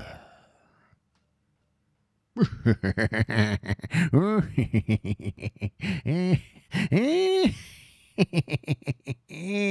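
A man's exaggerated evil clown laugh. It starts about two seconds in after a short silence, as a rapid run of short "ha" syllables broken by a few longer notes that rise and fall in pitch.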